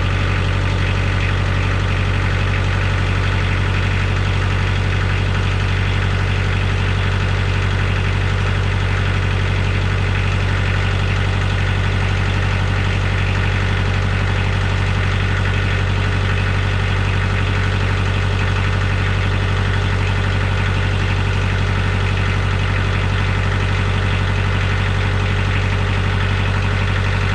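An engine idling steadily with a constant low hum, stopping right at the end.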